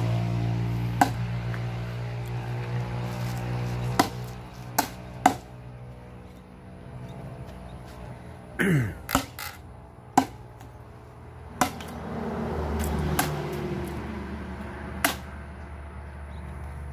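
Machete blows chopping into firewood logs: a string of sharp, irregularly spaced strikes, over faint background music.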